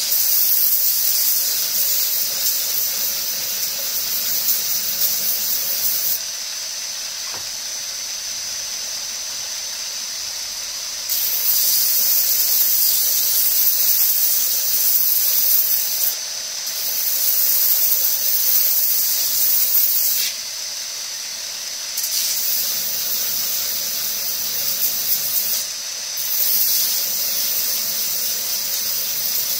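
Belt grinder running with a steady high whine while G10 knife scales are pressed against the belt at the contact wheel. Each pass adds a loud hissing rasp lasting a few seconds, about five passes with pauses between them where only the grinder runs.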